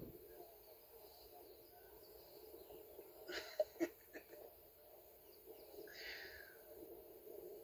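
A few sharp cracks in quick succession about three and a half seconds in, with a short rasping sound near the end: a lioness biting into and cracking a tortoise's shell, over a faint steady background hum.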